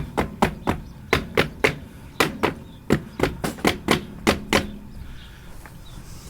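A rapid series of sharp knocks, about fifteen in quick runs of two to four, stopping about four and a half seconds in.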